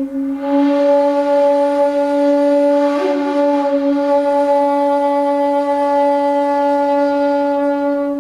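A 1.8 shakuhachi, an end-blown bamboo flute, holding one long low note that swells brighter about half a second in. A short breathy accent breaks it briefly about three seconds in, and the note begins to fade right at the end.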